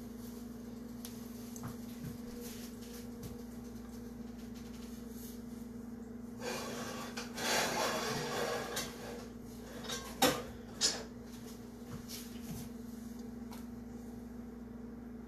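Kitchen handling sounds over a steady appliance hum: a stretch of rustling around the middle, then two sharp knocks about half a second apart.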